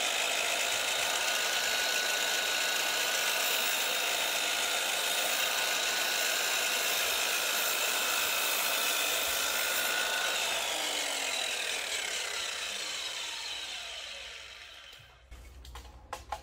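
DeWalt DWS780 sliding compound mitre saw running at full speed with its blade cutting through timber. About ten seconds in the motor is switched off and the blade winds down over a few seconds, falling in pitch. A few sharp clicks follow near the end.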